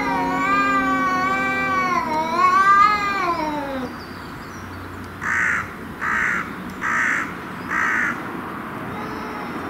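Cats in a territorial face-off, yowling: a long wavering caterwaul over a lower drawn-out moan, ending in a falling glide about four seconds in. After a pause come four short, harsh calls spaced evenly a little under a second apart.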